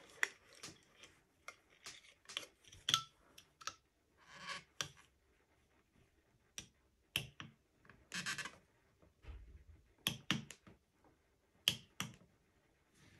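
Quiet, sharp plastic clicks and taps, scattered irregularly, with a couple of short scraping sounds, as the number-card label and its retainer are worked loose at the centre of a 500-series telephone's rotary dial.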